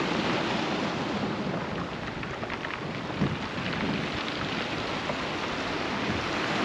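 Steady wash and hiss of sea surf on a shingle bank at high tide.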